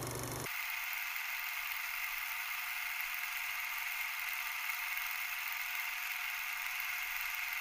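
A steady hiss with no clear source, strongest in the upper-middle range; a lower hum underneath drops away about half a second in.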